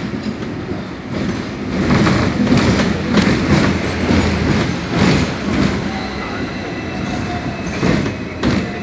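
A street tram running along its rails: a steady rumble with rattling and clattering from the wheels and car body. It grows louder about two seconds in and eases off past the middle.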